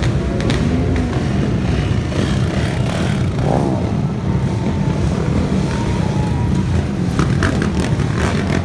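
Engines of a crowd of dirt bikes and ATVs running together in a loud, steady din.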